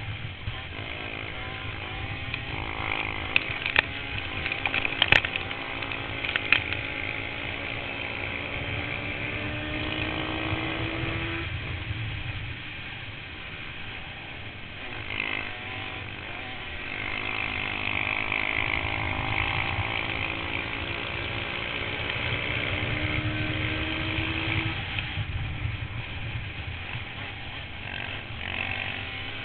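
Yamaha Banshee's twin-cylinder two-stroke engine running under race load, its pitch climbing for several seconds and then dropping off, twice, as it accelerates and backs off. A few sharp knocks sound a few seconds in.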